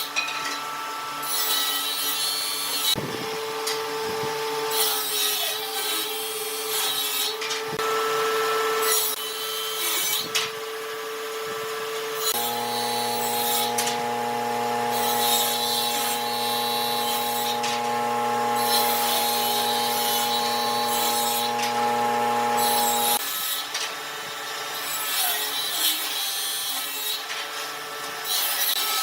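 Woodworking power tool running while cutting or sanding wood, with repeated rasping strokes over a steady motor hum. The hum changes pitch about 12 seconds in and shifts back near 23 seconds.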